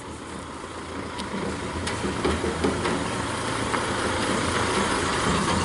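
Isuzu D-Max diesel pickup driving slowly closer, its engine growing louder, towing a paddock-vacuum trailer, with a few sharp clanks.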